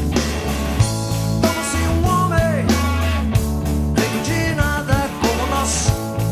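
Rock band playing live: a drum kit with cymbals keeps a steady beat under electric guitar and bass, with some sliding guitar notes.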